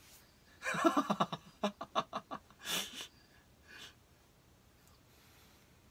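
A man laughing: a quick run of short laughs for about two seconds, followed by a breathy exhale.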